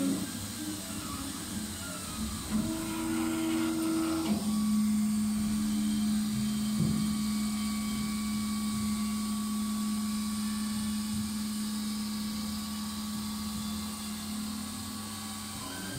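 Stepper motors of a MINGDA MD 666 3D printer whining as the print head moves while printing. The pitch jumps between several notes in the first few seconds, then holds one steady note from about four seconds in, over the steady whirr of the print-head cooling fan.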